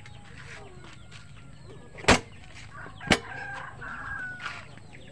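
Chickens clucking and a rooster crowing in the background. Two sharp knocks about a second apart, about two and three seconds in, are the loudest sounds.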